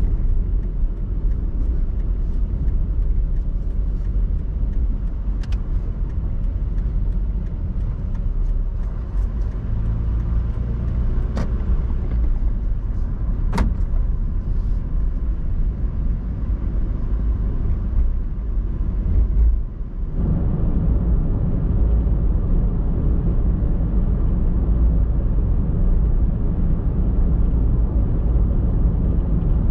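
Car driving along an open road: a steady low rumble of engine and tyre noise, with a few sharp ticks. After about twenty seconds it grows louder and rougher.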